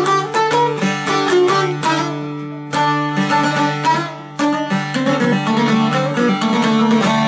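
Instrumental music on a plucked string instrument: quickly picked notes over a held low note.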